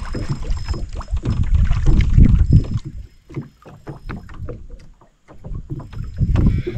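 Water lapping and slapping against the hull of a small aluminium boat, a run of irregular knocks over a low rumble. It is louder in the first half, eases off around the middle, and picks up again near the end.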